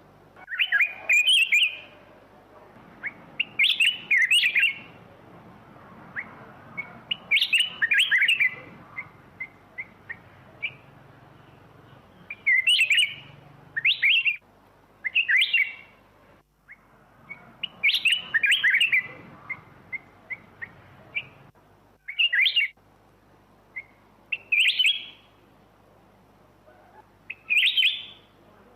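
Black-crested bulbul singing: short, loud warbled phrases repeated about every three seconds, with faint single short notes between them.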